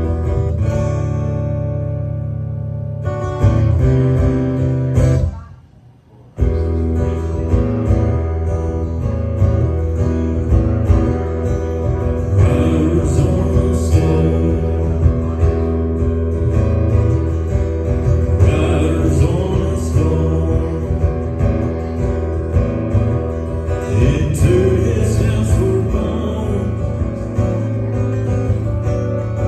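Guitar music, with strummed guitar. It cuts out for under a second about six seconds in, then carries on.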